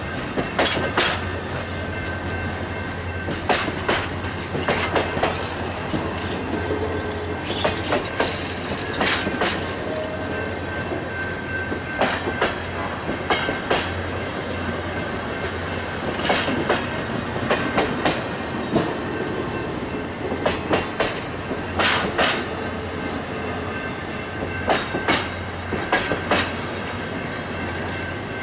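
Royal Gorge Route passenger and vista dome cars rolling past, their wheels clicking over rail joints in groups every few seconds over a steady rolling rumble. A faint steady high squeal from the wheels on the curving track runs underneath.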